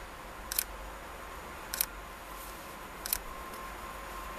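Distant approaching freight train hauled by an electric locomotive: a faint steady whine grows stronger near the end over a low background rumble. Three sharp double clicks sound at about one-and-a-quarter-second intervals and stand out above it.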